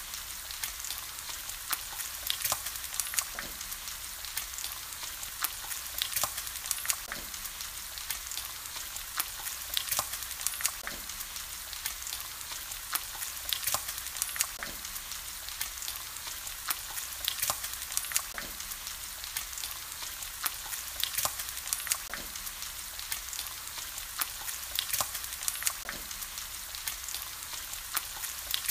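Bacon strips frying in their fat on a griddle: a steady sizzle with frequent sharp crackles and pops of spitting grease.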